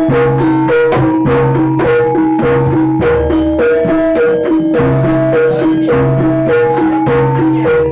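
Jaranan ensemble music: struck, gamelan-style pitched percussion repeating a short melodic pattern over steady drumming.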